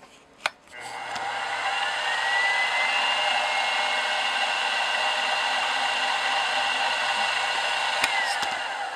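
Grizzly G0704 milling machine's spindle motor, switched on with a click about half a second in. Its whine rises as it comes up to speed, then it runs steadily while a center drill is fed into a metal bar. Near the end it clicks off and winds down with a falling whine.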